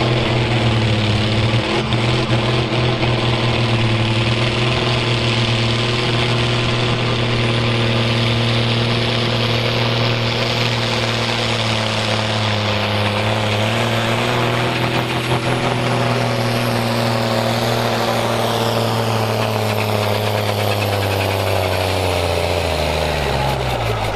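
Fiat 1580 tractor's six-cylinder diesel engine running flat out under full load, pulling the heavy sledge. The note holds steady, then sags lower over the last few seconds as the sledge drags the revs down, and drops off sharply at the very end.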